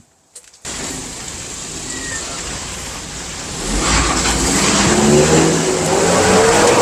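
1999 Nissan Frontier's 2.4-litre four-cylinder engine running, then accelerating from about four seconds in with its pitch rising. It is running on freshly fitted spark plugs and wires that have cured a cylinder 4 misfire.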